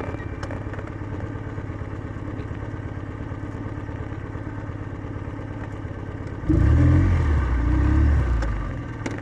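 Kawasaki W650's air-cooled parallel-twin engine running steadily through its stock exhaust, most likely at idle. About six and a half seconds in, a much louder, deep surge lasts about two seconds, then falls back.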